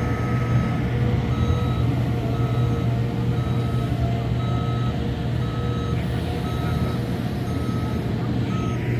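Reverse alarm on a diesel construction machine beeping about once a second, nine beeps in all, over the steady drone of its engine; the beeping stops near the end.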